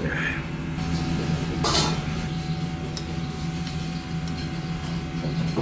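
Tableware being handled at a table: a glass and a ceramic plate, with one louder clatter a little under two seconds in and a few light clicks of a spoon against the plate. Under it runs a steady low hum.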